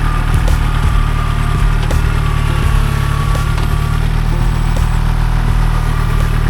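Kubota L2501 compact tractor's diesel engine running steadily.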